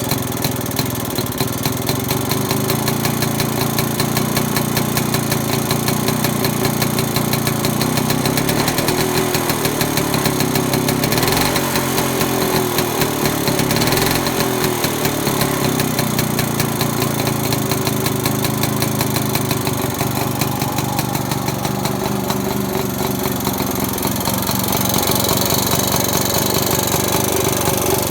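BSA Bantam D3's two-stroke single-cylinder engine running at a fast idle on its first start after several years standing, its pitch rising and falling a little about a third of the way in.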